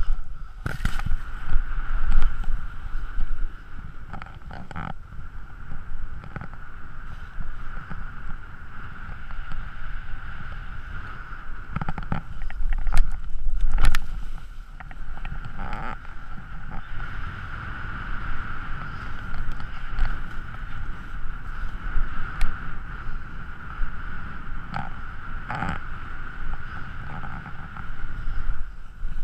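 Wind rushing over an action camera's microphone and the scrape of riding fast over packed snow, a continuous noise with a steady high-pitched tone underneath. Sharp knocks from bumps in the snow come every so often, loudest about halfway through.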